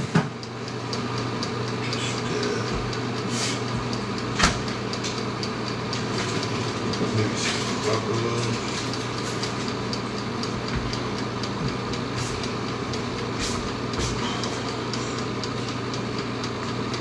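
A steady machine hum with a few light knocks and clicks.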